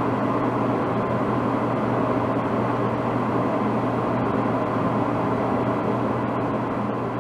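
Hitachi DE-N35FY electric clothes dryer running, a steady low hum under an even whoosh of the turning drum and fan, with its belt freshly replaced and its works cleaned and oiled.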